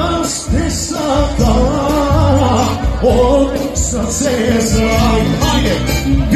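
Live band music played over a loudspeaker, with a singer's voice over a regular, heavy bass beat.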